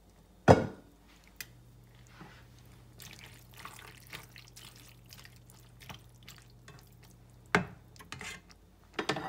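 A utensil stirs and scrapes through macaroni, chicken and vegetables in a pot of soup, with a loud sharp clunk about half a second in and a few more knocks against the pot near the end.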